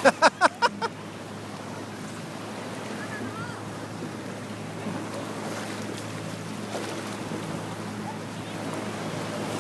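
Shallow sea water and wind on the microphone, an even steady wash with a faint low hum beneath it. Right at the start a voice sounds in about six quick short bursts.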